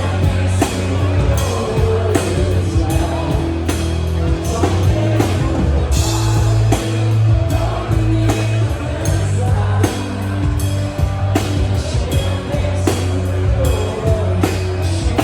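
Rock music with a steady drum beat and singing.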